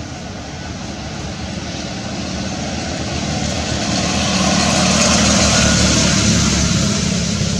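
An engine passing by, growing louder to its peak about five seconds in and easing off near the end, with a low throb under a broad hiss.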